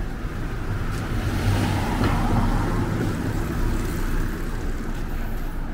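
A motor vehicle running close by, its noise swelling about a second and a half in and easing off, over a steady low hum.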